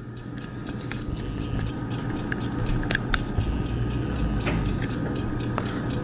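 Sargent & Greenleaf Model 4A time lock's wound clock movements ticking steadily and rapidly as they run down toward zero, with a low rumble underneath.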